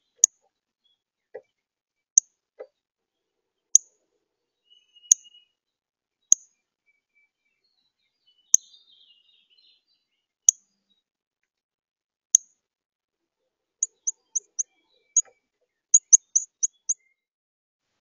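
Northern cardinal giving sharp, high single chip calls, one every second or two, then a quicker run of about ten chips near the end.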